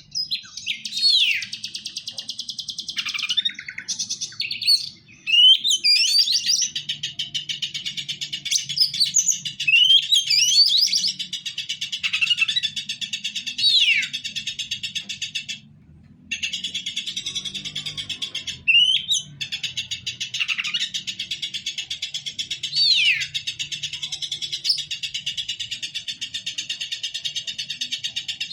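Oriental magpie-robin (kacer) in full aggressive 'ngobra' song: a fast, evenly pulsed buzzing chatter, with loud whistles sweeping down in pitch every few seconds and two short breaks. It is the rival-bird lure song kacer keepers play to provoke their own bird into singing.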